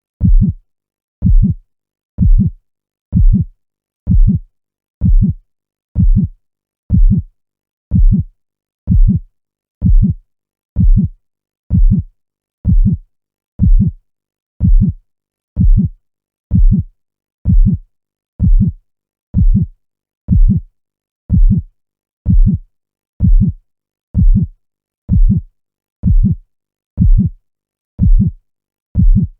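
Heartbeat sound: a low double thump (lub-dub) repeating steadily about once a second, with silence between beats.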